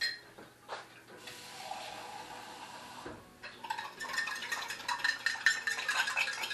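Kitchen clatter: about two seconds of water running, then a spoon clinking and stirring in a cup.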